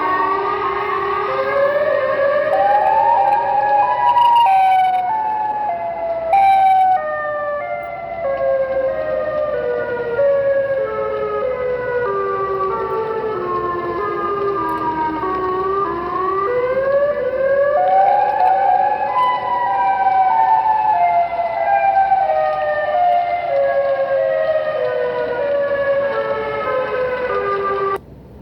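A pitched sound effect played back through a speaker: a long series of held notes that steps down in pitch one note at a time, jumps back up and steps down again.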